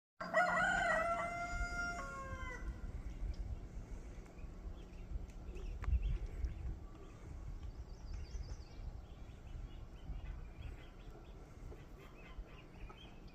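A rooster crowing once, about two seconds long, with a long held note that drops at the end. After it come faint chirps of small birds over a low rumble.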